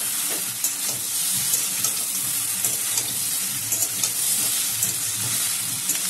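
Vegetables coated in spice paste sizzling steadily in a hot metal kadai as they are stir-fried, with a flat spatula scraping and tapping against the pan every second or so.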